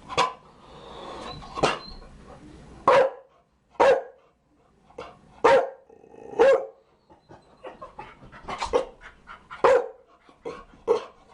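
Chow Chow barking: single deep barks, about ten of them, spaced irregularly roughly a second apart.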